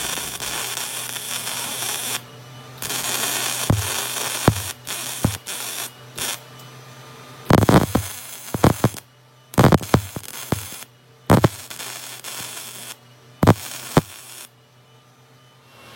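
MIG welder stitch welding a stack of steel layers into a billet: bursts of arc noise lasting a second or two, starting and stopping, with sharp knocks in between.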